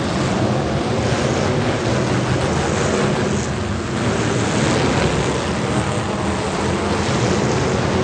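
Engines of several demolition derby cars running and revving together in a loud, steady din.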